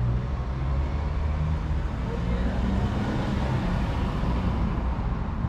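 Steady low rumble of a motor vehicle engine running, with a continuous hum and general street traffic noise.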